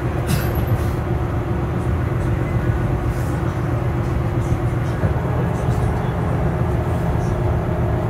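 Electric bus travelling at steady speed, heard from inside the cabin: a low road and tyre rumble with a steady, even whine from the traction motor.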